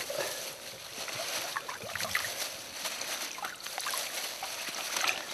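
Shallow river water splashing and sloshing as a plastic bag of black bread is held under and worked by hand, soaking it for groundbait. Many small splashes and crackles.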